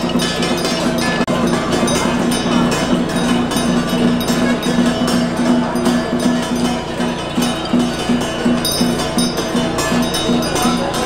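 Temple ritual music: fast, steady percussion with metallic ringing of gongs and bells, including a ritual master's handbell. It drops out for an instant about a second in.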